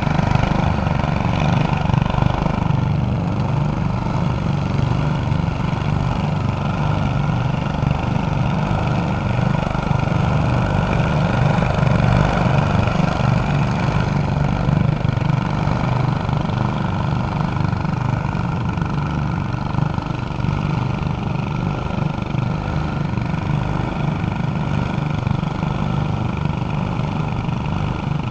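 Lawn tractor fitted with four small engines, running steadily.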